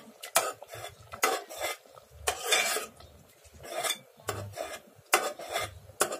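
A long steel spoon stirring thick cooked urad dal in a pressure cooker, knocking and scraping against the metal sides and bottom in irregular strokes.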